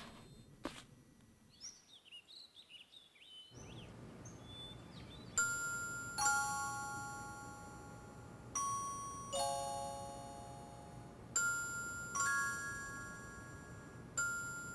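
Soft, bell-like chime notes, glockenspiel-like, struck in pairs about every three seconds and left ringing as a song's intro begins. A few faint high chirps come before the first notes.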